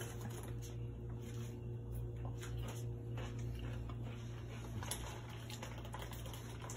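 Quiet kitchen room tone: a steady low electrical hum with a few faint clicks and knocks.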